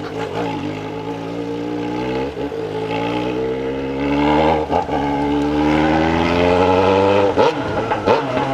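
Yamaha XJ6 inline-four with a straight pipe and no muffler, accelerating hard through the gears. The engine note climbs, drops back sharply at each of three upshifts, and gets louder about halfway through.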